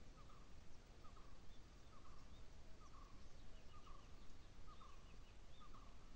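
Faint bird calls: one short call repeated about once a second, with fainter high chirps of other birds over a soft outdoor background.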